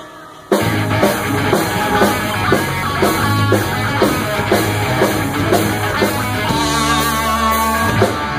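Heavy metal band playing live with electric guitars, bass and drum kit. After a short break at the start, the whole band hits together about twice a second, then holds one long chord that cuts off near the end.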